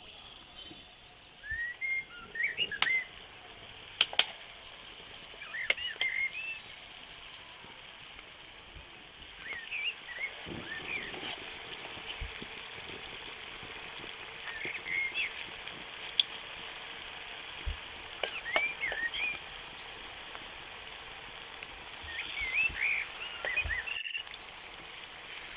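Batter-coated egg pieces deep-frying in hot oil in a metal wok, a steady sizzle. Birds chirp repeatedly throughout, and there are a couple of sharp clicks about three and four seconds in.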